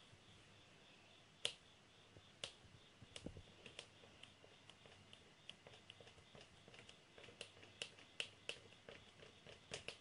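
A kneaded eraser dabbed against drawing paper on a board: an irregular run of short sharp taps, the loudest about one and a half seconds in and coming thicker in the second half.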